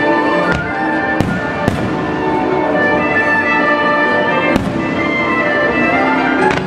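Aerial firework shells bursting in the sky with sharp bangs: three in the first two seconds and another about four and a half seconds in. Music plays under the bursts throughout.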